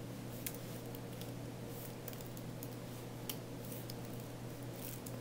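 Scattered keystrokes on a computer keyboard, a few short clicks spread over several seconds, over a steady low hum and hiss.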